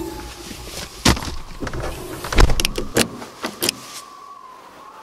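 Car trunk lid being pulled down and slammed shut, with a heavy, deep thump about two and a half seconds in, followed by a few quick sharp clicks of car door hardware.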